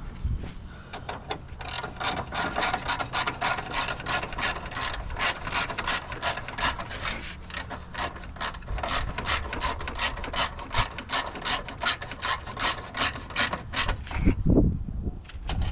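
Socket ratchet wrench clicking in quick, even strokes, about four a second, as a horn's mounting bolt is tightened; a low thump near the end.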